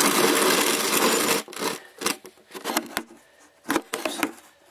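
Metal parts and tools being handled: a loud scraping rustle for about a second and a half, then a scatter of short clicks and knocks.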